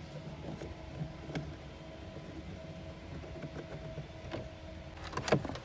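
Screwdriver and plastic glove-box parts giving small clicks and knocks as the glove box is unscrewed, with a louder clatter about five seconds in, over a steady low hum.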